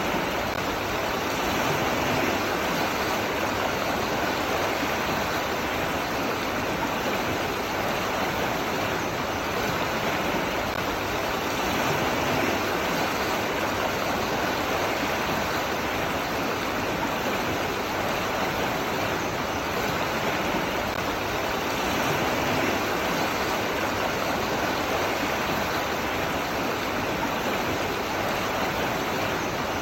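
Running water rushing steadily, an even sound with no breaks or changes.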